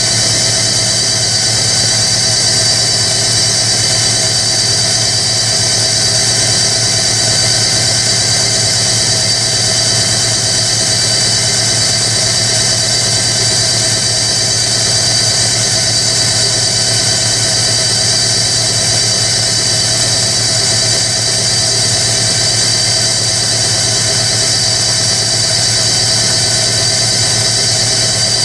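Hoover Electronic A3172 washing machine on an interim spin after the second rinse, its drum spinning at a steady high speed with a steady high-pitched motor whine over a low hum.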